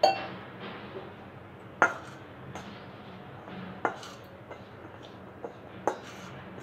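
Metal spoon knocking against a stainless steel bowl while stirring flour-coated sweet corn kernels: a loud ringing clink at the start, then a sharper knock about every two seconds.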